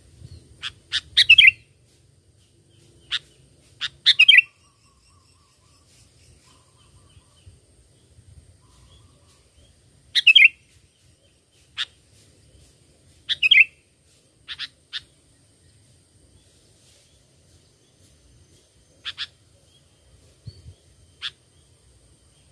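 Sooty-headed bulbul (kutilang) calling: short, bright, chirpy phrases every few seconds, with single sharp notes between them.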